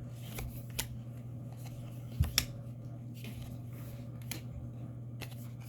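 Trading cards and booster-pack wrappers being handled: scattered light clicks and rustles over a steady low hum, with one louder tap a little over two seconds in.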